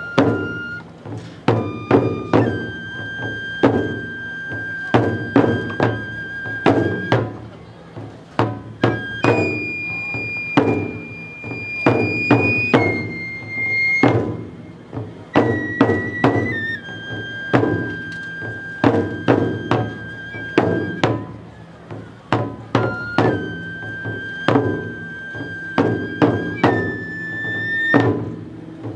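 Japanese festival-style music: drum strikes in quick clusters, with a high flute playing long held notes that step up and down in pitch.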